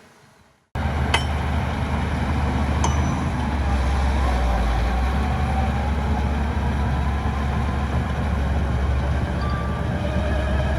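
Heavy diesel engine of an earthmoving machine running steadily with a deep rumble, cutting in abruptly just under a second in. Two sharp clicks sound over it in the first few seconds.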